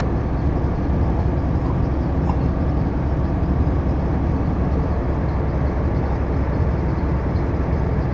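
Steady low rumble of a vehicle being driven, engine and road noise with no distinct events.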